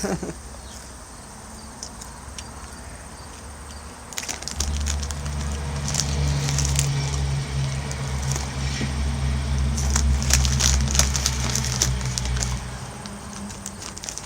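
Doritos chip bag crinkling and rustling as it is handled and tipped up to finish the crumbs, with scattered crackles. From about four and a half seconds in, a loud low rumble runs under it and stops shortly before the end.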